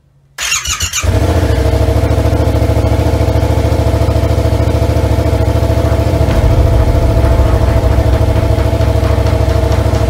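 Motorcycle engine being started: a brief cranking sound, then the engine catches about a second in and settles into a steady idle.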